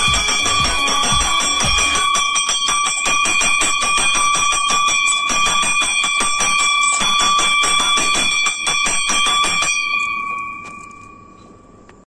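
Red metal temple bell rung rapidly, its clapper striking several times a second over a steady ring. Near the end the striking stops and the ringing fades out.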